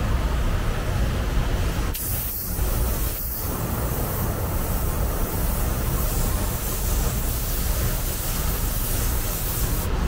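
Steady hiss of compressed air that starts abruptly about two seconds in and breaks off briefly near the end, over a steady low hum.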